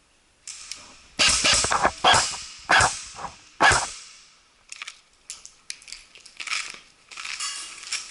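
Airsoft guns firing short bursts of rapid clicking shots in close quarters, four loud bursts with echoing tails in the first half. Lighter scattered clatter and rustling follow.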